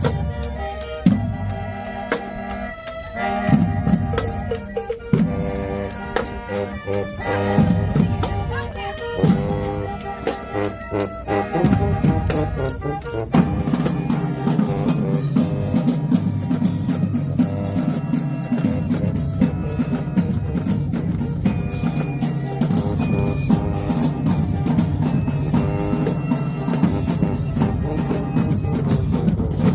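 Marching band playing: brass chords over marching drums, with rapid drum strokes, giving way about 13 seconds in to a denser, steadier low brass passage that cuts off at the end.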